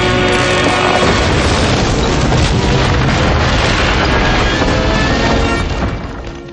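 Dramatic cartoon score under a loud, sustained boom-like blast sound effect, which dies away near the end.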